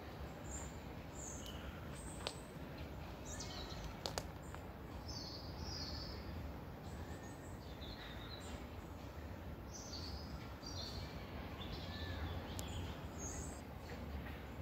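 Many small birds chirping and twittering in short high calls scattered throughout, over a steady low background rumble. There are two sharp clicks, about two and four seconds in.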